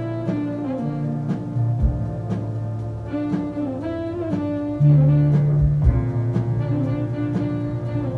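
A jazz big band playing: saxophones and brass holding chords over bass and drums, with evenly spaced cymbal strikes. A louder low bass note enters about five seconds in.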